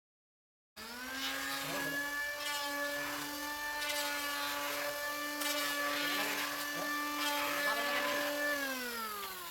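Electric woodworking power tool starting up abruptly and running at a steady high pitch, with short rasping bursts as it works the wood, then winding down in pitch near the end as it is switched off.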